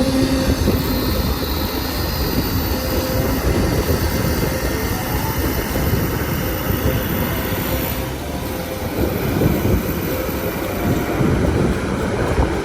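Steady, noisy rumble of a heavy-machinery engine for an excavator, with a faint steady hum in the first few seconds.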